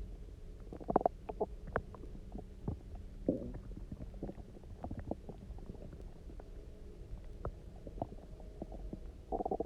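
Human stomach gurgling on an empty stomach topped up with water: bigger gurgles about a second in and around three seconds, many small pops and bubbles in between, and a louder gurgle near the end. These are hunger rumbles after about 24 hours without food.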